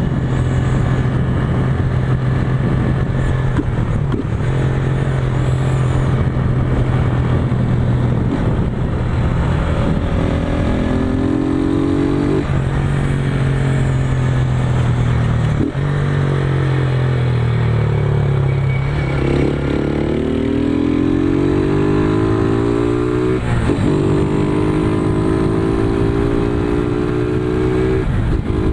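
Single-cylinder 150 cc motorcycle with a Roncar ML Competition aftermarket exhaust, ridden on the road, its deep engine note rising and falling several times as it accelerates and shifts. The exhaust is leaking at the joint where it meets the engine, which the rider says you can hear.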